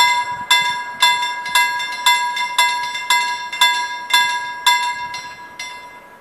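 Level crossing warning bell ringing with even strikes about two a second. The strikes grow fainter and stop about five and a half seconds in.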